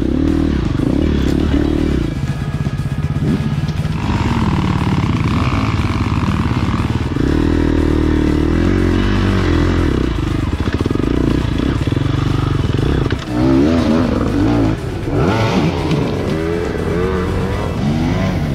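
Engine of an off-road trail-ride vehicle running under way, its pitch rising and falling every few seconds with throttle and gear changes, over a steady noise haze.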